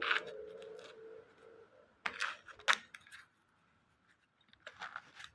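A crab being cut open and picked apart by hand: scattered sharp clicks and snaps, with a cluster about two seconds in and another near the end.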